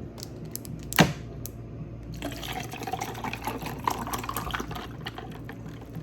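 Water running from a kitchen tap and splashing into the sink from about two seconds in, after a single sharp knock about a second in.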